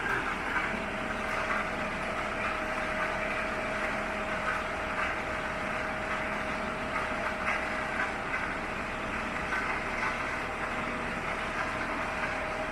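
Bullard vertical lathe running under power: a steady mechanical hum with a constant whine and a light clatter throughout.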